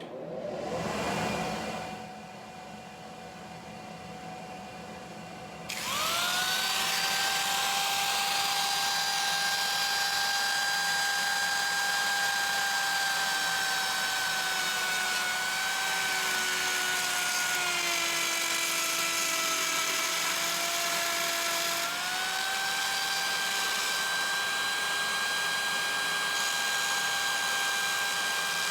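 A dust-collector blower starts with a brief surge and settles into a low hum. About six seconds in, a handheld trim router spins up to a loud, steady high whine. Its pitch sags for several seconds in the middle as the bit bogs under load cutting the wood profile, then comes back up.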